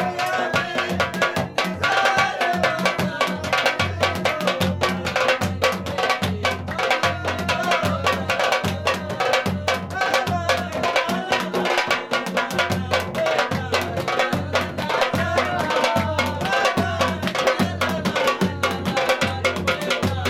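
Shina folk dance music: drums keep up a steady, driving beat under a wavering melody line.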